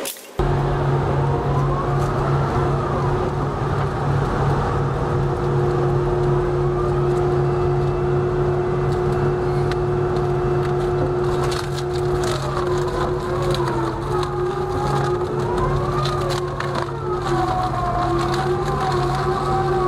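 Mobile twin-shaft shredder running with a steady low drone as its slow-turning rotors chew tree roots and stumps. From about halfway on, the wood cracks and splinters as it is torn apart, and the machine's higher tones waver in pitch under the load.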